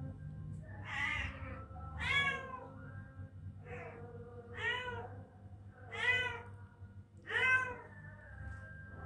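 Two-week-old kitten mewing: about six short, high-pitched mews, each rising and falling in pitch, spaced a second or so apart.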